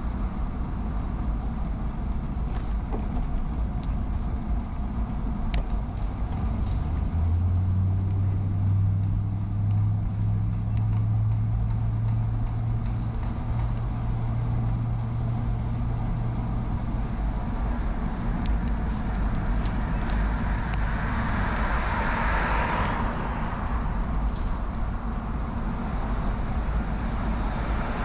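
Street traffic heard from a moving bicycle over a steady low rumble: a low engine hum from about seven seconds in that lasts about ten seconds, then a car passing by about two-thirds of the way through and another near the end.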